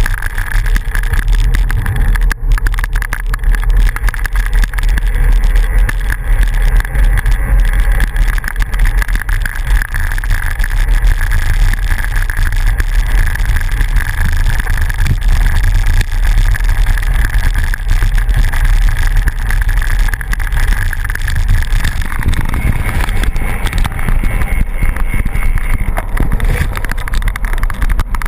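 Bicycle tyres rolling over a hard-packed dirt road with wind buffeting the bike-mounted camera's microphone: a loud, steady rumble with a steady hum above it that rises slightly in pitch about three-quarters of the way through.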